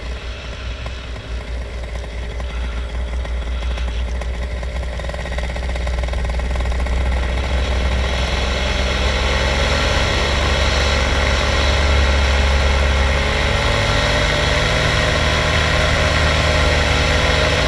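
Small engine of a low-flying aircraft running steadily, growing louder and higher in pitch from about six seconds in as it speeds up.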